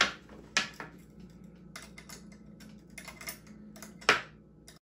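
Sharp metal clicks and clacks of pliers gripping and turning a small nut on an electric scooter's front fork, irregular, the loudest about four seconds in. The sound cuts off just before the end.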